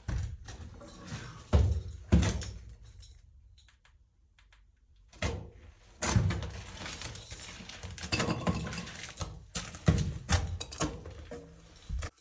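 Thumps, knocks and rustling from a person moving about and handling things in a cramped crawl space. Two loud thumps come about two seconds in, then a short lull, then a longer run of knocks and scraping.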